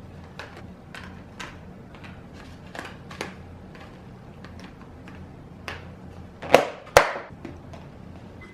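Scattered light clicks and taps from handling things on a kitchen counter over a steady low hum, with two louder sharp knocks about six and a half and seven seconds in.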